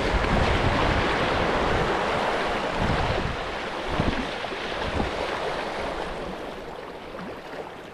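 Surf washing in with wind buffeting the microphone; the wash slowly dies away over the last few seconds.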